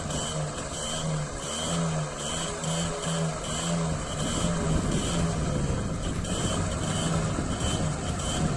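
A TVS 50 moped's small 50cc two-stroke engine running, with a short tone beeping about twice a second over it.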